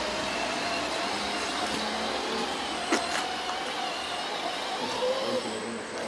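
Radio-controlled model tractor running as it pulls a loaded tipper trailer through sand, its drive giving a wavering mid-pitched whine over a steady hum. A single sharp click about halfway through.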